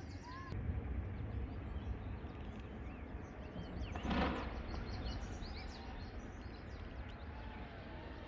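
Small birds chirping repeatedly over a steady low wind rumble, with one brief, louder call about four seconds in.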